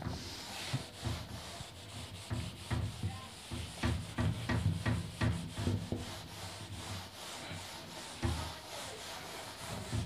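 Eraser rubbing across a whiteboard in quick, repeated back-and-forth strokes, about two a second, wiping off marker writing.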